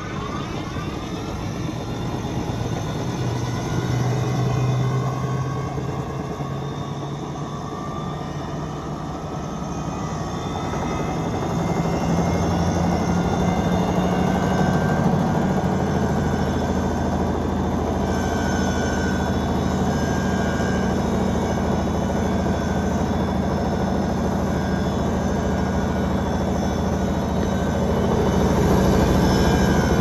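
Old front-loading washing machine running, its motor and drum turning fast with a steady hum and whine. It grows louder about a third of the way in and again near the end as the drum speeds up.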